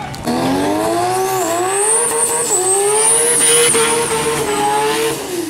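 Mazda RX-7 drag car doing a burnout: the engine is held at high revs, its pitch climbing in steps, with a steady high squeal from the spinning rear tires. The revs fall away near the end.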